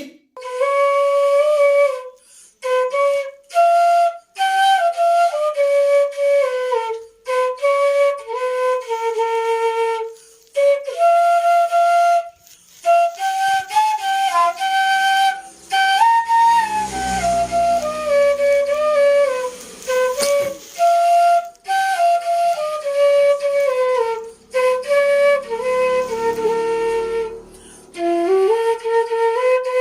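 Background music: a slow solo melody played one note at a time, with short breaks between phrases.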